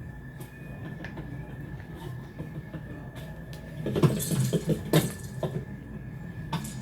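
Steady machine hum with a constant high tone, and a short burst of metallic clinking and rattling about four to five seconds in.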